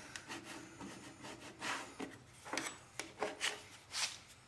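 A hand-held abrasive pad scrubbing the golf cart's body panel in short, uneven strokes, rubbing off paint that has been loosened by chemical stripper.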